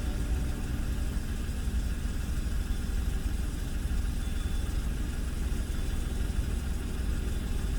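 A steady low rumble with no clear rhythm or change.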